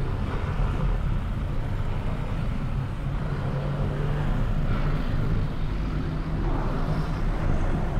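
Steady low engine and road rumble of a vehicle driving slowly through city traffic.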